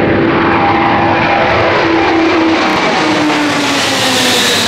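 Four-engine high-wing jet transport passing low overhead: loud, steady jet engine noise with whining tones that slowly fall in pitch as it goes by, and a brighter hiss building near the end.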